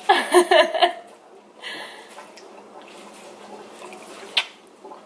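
A short, high vocalisation for about a second, its pitch bending up and down. Then a brief hiss, and one sharp click near the end.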